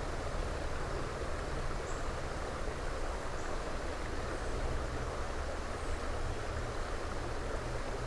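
Shallow creek water running over a rocky riffle, a steady, even wash of flowing water.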